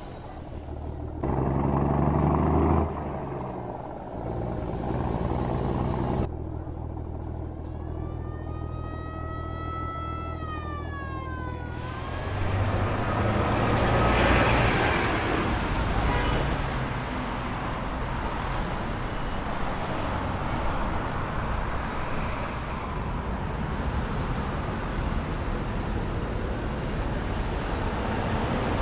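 City street traffic: motor vehicle engines running and passing. About eight seconds in, a siren wails once, rising and then falling over about four seconds.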